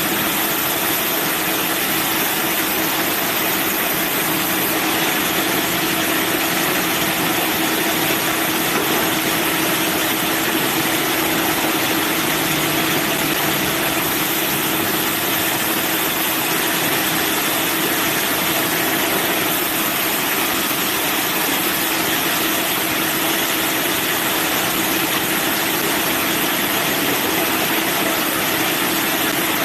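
Manual band sawmill running steadily: a constant machine hum with a dense hiss over it, unchanged throughout.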